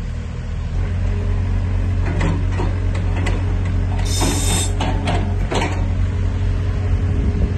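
Bobcat E85 excavator's diesel engine running with a steady hum that picks up slightly about a second in as the boom, arm and bucket are worked. Several clanks and knocks come from the bucket and arm linkage, with a brief hiss midway.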